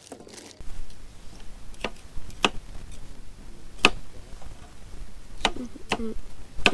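A knife chopping vegetables on a small cutting board: about six sharp knocks at uneven intervals.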